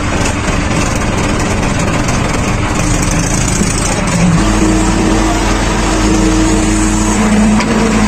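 JCB 3DX backhoe loader's diesel engine running loud under load, heard from the operator's cab. About four seconds in, a steadier, slightly louder hum comes in as the backhoe is worked.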